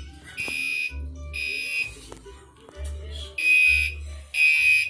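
Gentex Commander 3 fire alarm horn sounding its normal tone in temporal code 3: loud half-second beeps, three to a group with a longer pause between groups. Here two beeps end one group, then after about a second and a half of pause two beeps begin the next.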